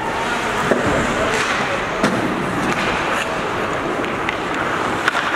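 Ice hockey play: skates scraping on the ice, over steady rink noise, with three sharp knocks of sticks and puck.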